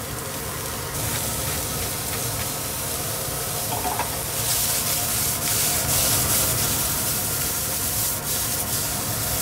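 Sliced green chillies, shallot and fried garlic sizzling in a hot stainless-steel frying pan on residual heat after the burner is turned off. From about four seconds in the pan is tossed and stirred, adding repeated scraping strokes.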